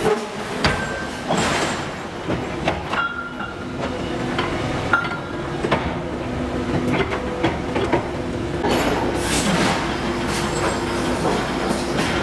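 Forge-shop machinery running with a steady hum, with scattered sharp metallic knocks and clanks at irregular moments.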